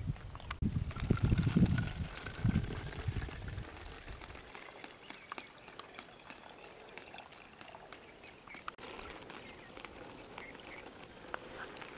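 Water poured from a plastic mug into a hanging plastic glucose bottle used as a drip feeder, trickling in with a faint tone that rises a little as the bottle fills. A low rumble runs over the first few seconds.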